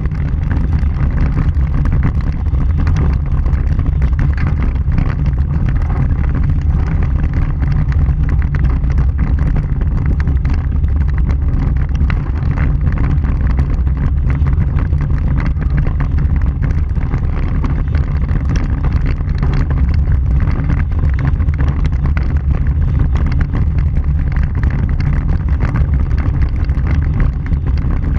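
Vehicle driving on a gravel dirt road, heard from a bumper-mounted camera: a steady low rumble of tyres and running gear, with wind buffeting the microphone.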